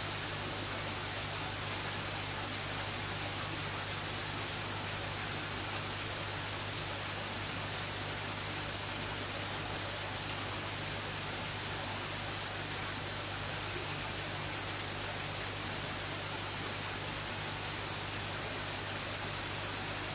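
Aquarium pump running: a steady hiss of moving water with a low, even hum underneath.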